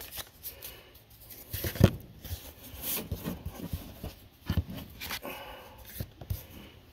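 Trading cards being handled: the cards are sorted in the hands and set down on a tabletop, giving soft rustles and a series of light taps and knocks, the loudest about two seconds in.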